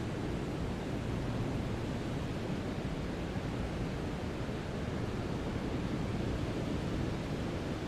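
Steady brown noise: an even, deep rushing hiss, strongest in the bass and falling off toward the treble, with no changes.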